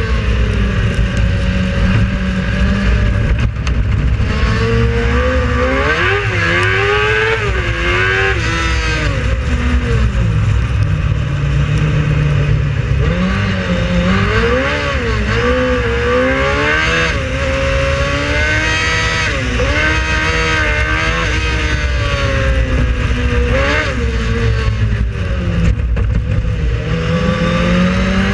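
Race car engine running hard, its pitch rising and falling repeatedly as the revs climb and drop.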